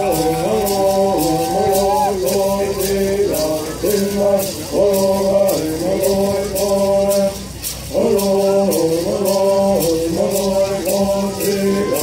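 A group of men singing a Bird song in unison, accompanied by gourd rattles shaken in a steady rhythm; the singing breaks briefly about two-thirds of the way through while the rattles carry on.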